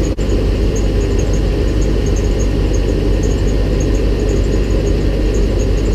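Vehicle engine idling steadily, with the hydraulic system pressurised and the auto-park brake released; a momentary break in the sound just after the start.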